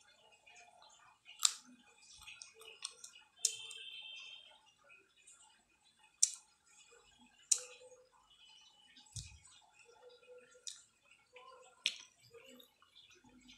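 Sharp, separate clicks and ticks, about seven spread irregularly over a quiet room, with one dull low thump a little past the middle.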